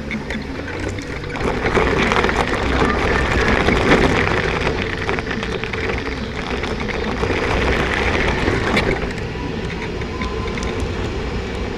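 Wheels of a small, low-slung ride crunching and rattling across a gravel driveway, then running more smoothly onto asphalt, with rushing wind noise.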